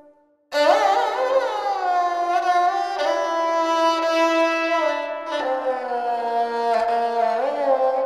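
Sarangi played solo with the bow: long held notes joined by slides between pitches, with a lower note sounding beneath. After a brief silence a new phrase begins about half a second in.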